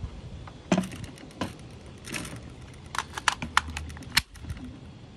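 Magazine being picked up off a wooden table and fitted into an AK-pattern pistol's magazine well: a series of sharp metal and plastic clicks and knocks, with a quick run of clicks about three to four seconds in.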